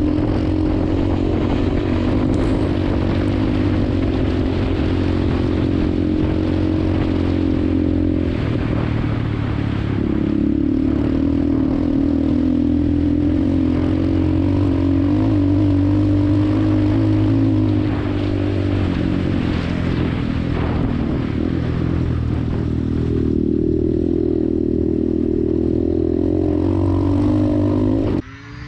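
250cc dirt bike engine running hard under throttle, its pitch changing in steps several times; the sound breaks off abruptly near the end.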